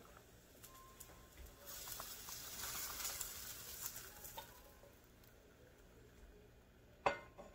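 A silicone spatula scraping thick, saucy baked beans out of a pan into a glass baking dish: soft, wet scraping with small clicks, then a sharp knock near the end.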